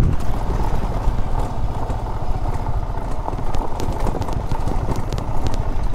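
Yamaha R15 V3 motorcycle riding slowly over a rough stone-paved track: its single-cylinder engine runs steadily under a dense low rumble, with scattered clicks and clatter from the bike jolting over the stones.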